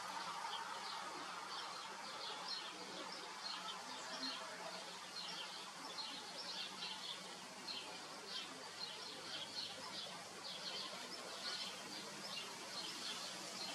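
Small birds chirping: many short, high chirps, irregular and overlapping, over a faint steady background noise.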